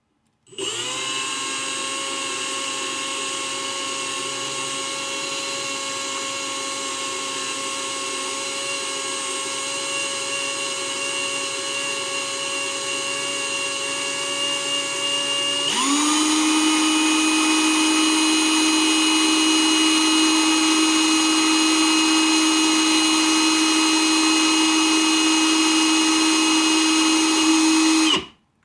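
Electric power drill motor running steadily, spinning a spool to unwind solder wire. About 15 seconds in its pitch changes and it gets louder, then it stops abruptly.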